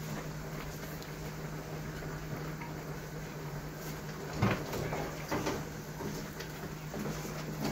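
A few knocks and clinks of a metal lid on an aluminium cooking pot being handled, the loudest about halfway through, over a steady low hum.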